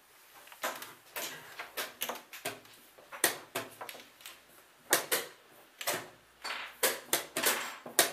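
Wooden chess pieces knocked down onto a wooden board and a chess clock's buttons pressed in quick blitz play: a rapid, irregular run of sharp clicks and knocks, two or three a second.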